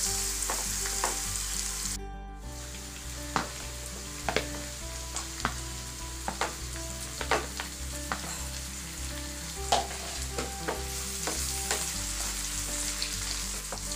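Chopped onions and green chilies sizzling in oil in a non-stick pan, stirred with a wooden spatula that clicks and knocks against the pan every so often. Chopped tomatoes are tipped in partway through. The sizzle drops out briefly about two seconds in.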